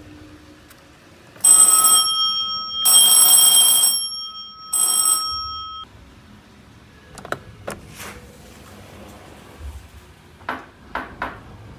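Telephone bell ringing in three short bursts, a ring sound effect played by a replica ride control panel. Several sharp clicks follow.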